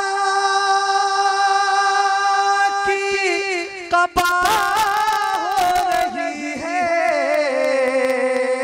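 A man singing a naat solo into a microphone: a long held note for about three seconds, then a wavering, ornamented melodic line. A few sharp clicks come about four to six seconds in.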